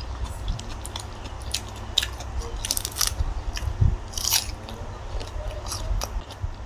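A person eating close to the microphone: irregular biting and chewing with crisp crunches and small wet clicks.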